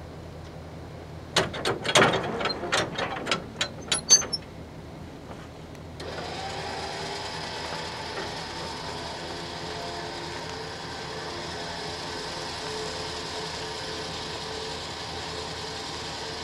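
A quick run of sharp clicks and clunks, then, about six seconds in, a steady mechanical whir sets in and holds. The whir is the Rough Country electric winch with synthetic rope, running under load as it pulls a tractor in.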